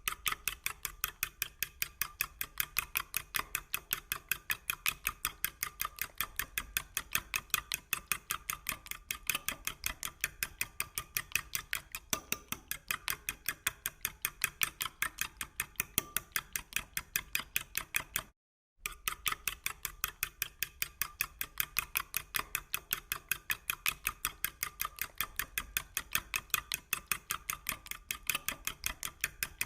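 Eggs being beaten by hand in a bowl: quick, even clicking strokes against the bowl at about five a second. The strokes break off briefly about 18 seconds in, then start again.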